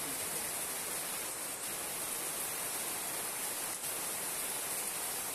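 Steady rain falling on the water of an above-ground swimming pool, an even hiss without breaks.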